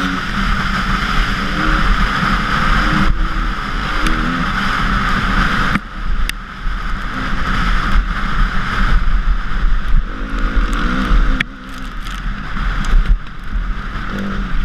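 KTM 350 EXC-F's four-stroke single-cylinder engine under way at speed, its pitch rising and falling with the throttle, over heavy wind noise on the microphone and tyres on gravel. The engine note drops sharply twice as the throttle is shut, about six seconds in and again near twelve seconds.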